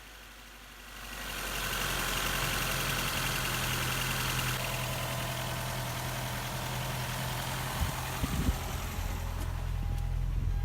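1999 Ford Contour engine idling evenly, its misfire cured by a new coil pack. The sound comes up over the first second or two and then holds steady, with a couple of brief knocks near the end.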